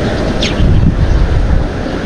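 Wind buffeting the microphone: a loud, rough rumble, with one brief high chirp about half a second in.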